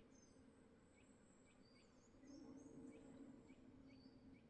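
Near silence: faint outdoor ambience with small birds chirping in short, high calls, over a faint low hum that grows slightly louder about two seconds in.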